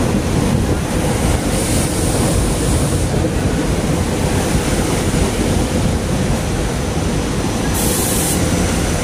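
SEPTA Regional Rail Silverliner IV electric train running past the platform in an underground station: a steady, loud rumble of wheels on rail. A brief high hiss sounds about eight seconds in.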